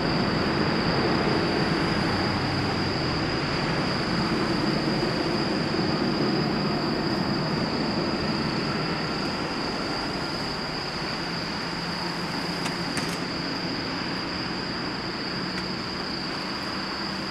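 The four turbofan engines of a Boeing 747-400F freighter make a steady jet rumble that slowly grows fainter as the aircraft moves away down the runway. A thin, steady high whine sits above it.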